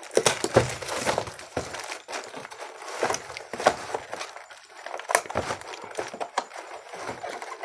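Packing tape being peeled by hand off a cardboard ceiling-fan blade box and the end flap pulled open, with crinkling plastic wrap and scattered clicks and taps of cardboard being handled.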